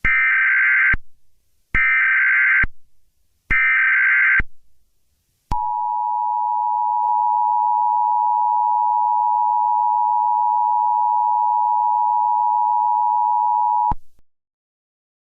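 Emergency Alert System header and attention signal: three short bursts of SAME data tones, each just under a second long and evenly spaced, then the steady two-tone attention beep, held for about eight seconds before it cuts off.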